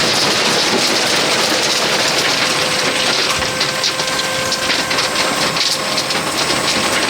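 A dump trailer running its lift to tip out a load of crushed stone: a steady mechanical hiss with a faint constant whine, and a higher whine that joins about halfway through.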